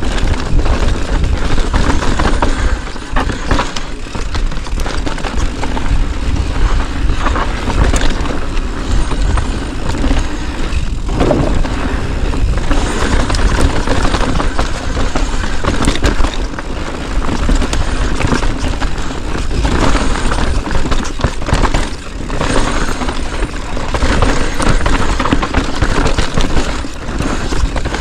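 Mountain bike descending a rocky dirt trail at speed: wind buffeting the camera microphone, tyres rumbling over dirt and rock, and frequent knocks and rattles from the bike over rough ground.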